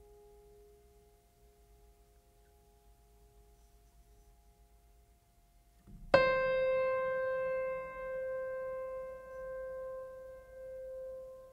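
Background music: faint fading tones for the first half, then a single piano note struck about halfway through and left to ring out, slowly dying away.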